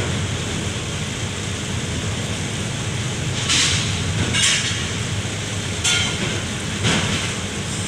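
A truck engine idles with a steady low rumble, while steel rebars being handled on the truck bed clank sharply four times in the middle and latter part.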